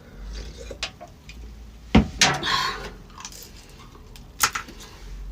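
Tableware and other small items being handled at a table: a few clicks and knocks. The loudest is a sharp knock about two seconds in, followed by a brief clatter, and another sharp knock comes near the end.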